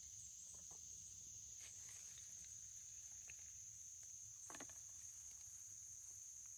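Faint, steady chorus of crickets, an even high-pitched trill, with a few soft clicks, the clearest about four and a half seconds in.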